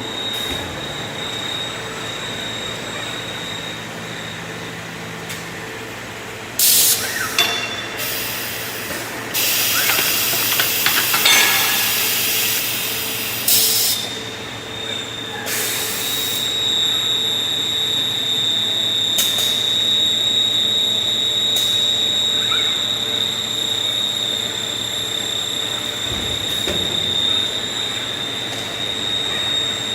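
Machinery running with a steady high whine and a lower hum, broken in the middle by several loud bursts of hissing that last from under a second to several seconds.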